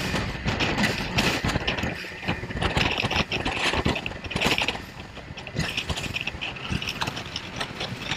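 Rigid inflatable rescue boat running fast through choppy sea: a continuous rush of wind, water and spray, broken by many sharp knocks as the hull slams into the waves.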